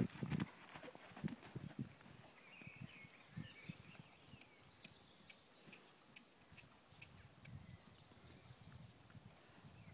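Hooves of a ridden horse thudding on a sand arena surface in an uneven run of soft, dull footfalls, loudest near the start.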